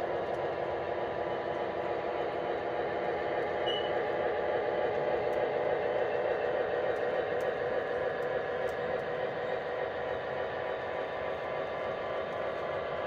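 O scale model covered hoppers and a caboose rolling past on the track, making a steady rumble of wheels on rail that swells slightly midway and eases toward the end as the last car goes by.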